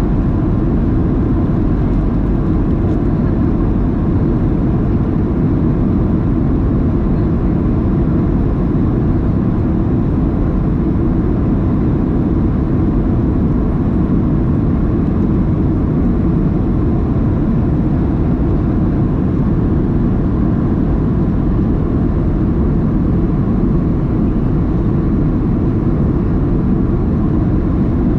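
Steady, low-pitched cabin noise inside a Boeing 737-700: the rumble of its CFM56-7B engines and airflow heard from a window seat, unchanging throughout.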